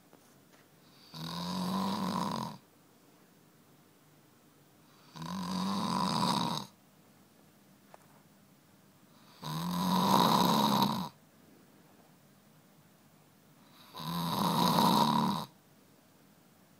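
Snoring in sleep: four long snores, each about a second and a half, coming roughly every four seconds, with near quiet in between.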